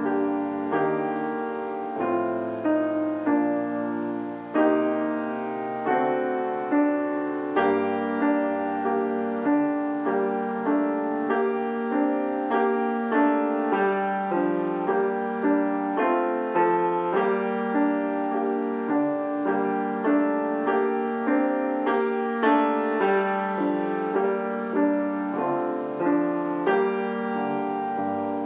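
Hailun HG 178 grand piano (5'10") played solo: a classical piece in steady, evenly paced notes, about two a second, melody over chords.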